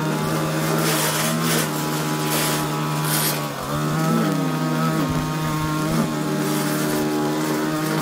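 Echo string trimmer engine running at high revs with the line cutting through long grass. The engine pitch dips briefly a few times as the throttle eases off, then climbs back.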